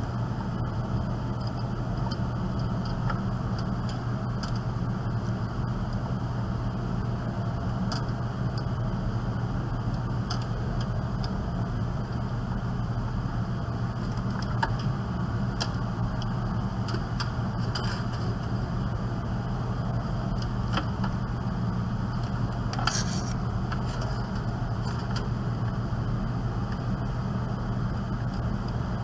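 Computer cable connectors being handled and plugged into a system unit's parts, a few short plastic clicks and rattles now and then, over a steady low mechanical hum.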